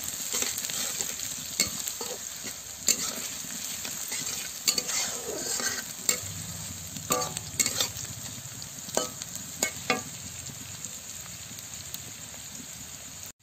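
Sliced onions and green chillies sizzling in hot oil in a kadai, stirred with a flat spatula that scrapes and clicks against the pan every second or so.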